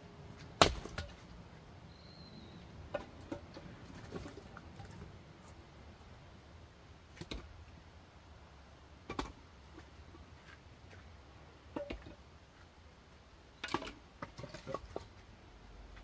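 Axe chopping firewood: a series of sharp wooden chops a second or a few seconds apart, the first one about half a second in the loudest, with a quick run of lighter knocks near the end.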